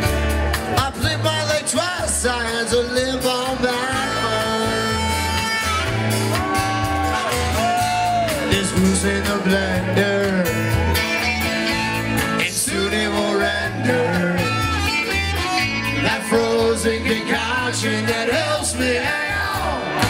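Live band playing amplified: electric guitars, bass and drums keeping a steady beat, with a melody that bends up and down in pitch over the top.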